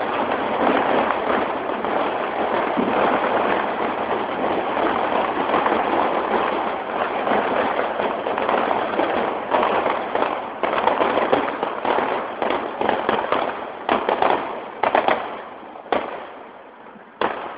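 Fireworks going off in a rapid, dense run of crackles and bangs, which thins out near the end to a few separate bangs.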